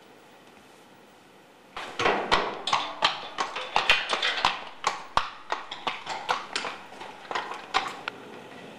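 A horse's hooves striking the hard floor of a stable aisle as it walks. There is a quick run of sharp hoof strikes, about three a second, starting about two seconds in and stopping shortly before the end.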